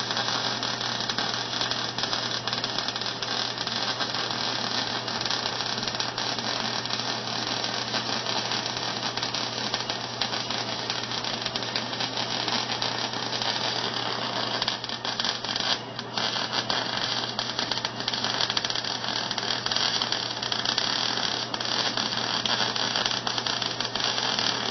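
Electric arc welding: the arc's continuous crackling sizzle, made of many fine rapid pops, over a steady low hum. The crackle briefly breaks off about sixteen seconds in, then resumes.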